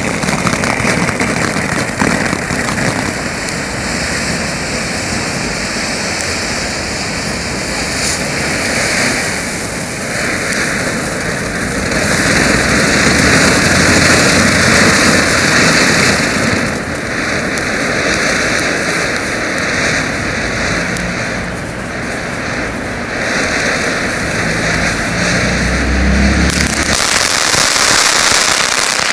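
Weco Potzblitz fountain battery burning: a steady hiss of spraying sparks with crackling, swelling and easing in stages every few seconds as the fountains change, then cutting off at the very end.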